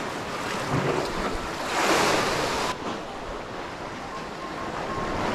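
Sea waves washing in and out among concrete tetrapods, with a louder hissing rush of water about two seconds in that cuts off suddenly about a second later.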